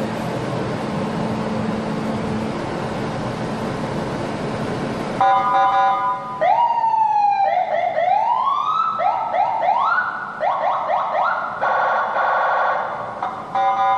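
Senken CJB100BD electronic siren switched on about five seconds in, cycling through its tones: a steady horn-like tone, a falling wail, rising wails, a run of quick rising yelps, then a rapid warble before the steady tone returns near the end. Before it starts there is a steady noisy hum.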